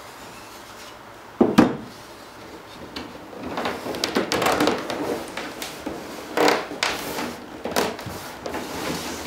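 A loud knock about a second and a half in, then a cedar strip squeaking and rubbing against its neighbours as it is pressed by hand into the last gap in a strip-built canoe hull. The squeak is the sign of a tight fit.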